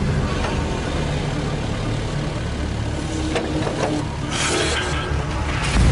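Excavator's diesel engine running with a steady low rumble, with a brief rushing burst of noise about four and a half seconds in and another near the end.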